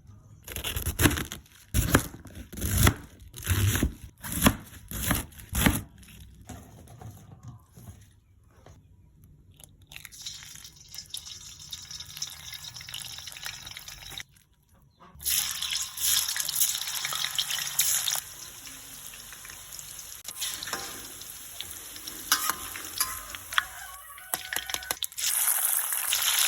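Kitchen food-preparation sounds: a quick series of knocks and handling noises at the start, then stretches of running or splashing water.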